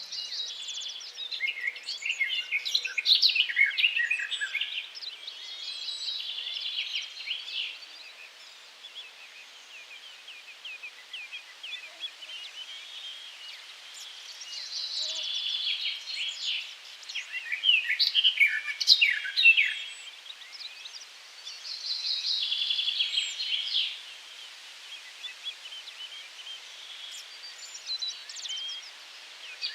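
Songbirds singing in busy phrases several seconds long, separated by quieter stretches, over a faint steady outdoor background.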